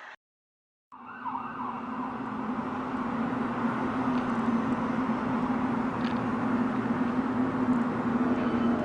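A short dropout to silence, then a steady low drone with one strong steady tone, slowly growing louder: a mysterious 'sky sound' or 'sky trumpet' hum of the kind people record outdoors and cannot identify.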